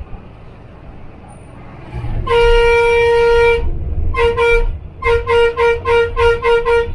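Bus horn honked: one long blast of about a second, a shorter blast, then a rapid string of about eight short toots, roughly four a second, over a low engine and road rumble.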